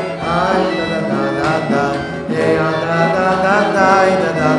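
Singing of a wordless Hasidic niggun on 'la la' syllables, the tune gliding up and down over a steady instrumental accompaniment.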